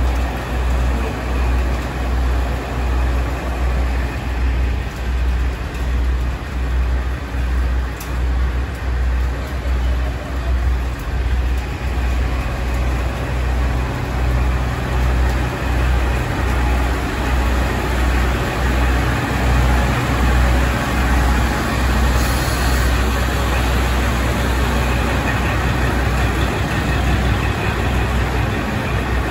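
Diesel engine of a KiHa 40 railcar idling while it stands at the platform: a low throb that swells and fades about once a second, settling steadier in the second half.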